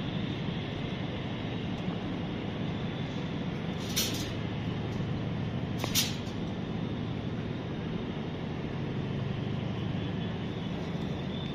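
Steady low rumble of outdoor background noise, with two short sharp clicks about four and six seconds in.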